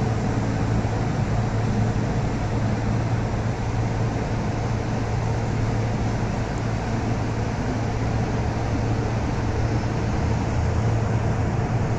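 MTR M-train electric multiple unit slowing as it pulls into an underground platform, heard through glass platform screen doors: a steady rumble of wheels and running gear with a low hum underneath.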